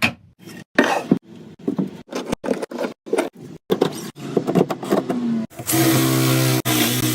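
A series of short, sharp clicks and knocks, then an electric power tool's motor switches on about five and a half seconds in and runs steadily at a constant pitch.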